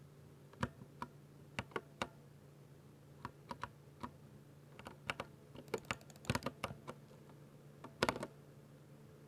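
Typing on a 60% mechanical keyboard with Ducky silver switches: irregular keystrokes, sparse at first, then a quick flurry and a final loud cluster of presses near the end.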